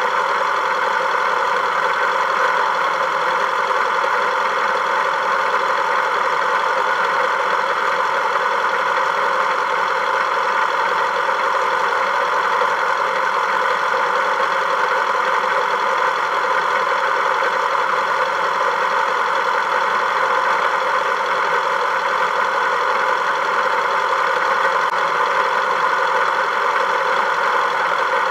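A vehicle engine's steady drone, unchanging in pitch and level.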